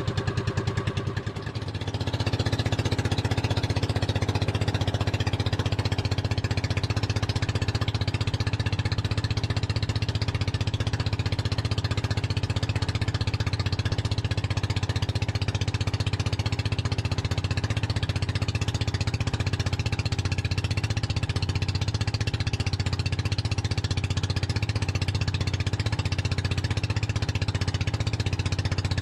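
Small outrigger boat's engine running under way with a fast, even putter. It dips briefly about a second in, then picks up and runs steadily louder.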